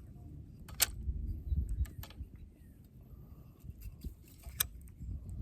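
Handling noise from rigging a fishing hook with soft plastic worms: a few sharp clicks and light rustles, with a low rumble on the microphone.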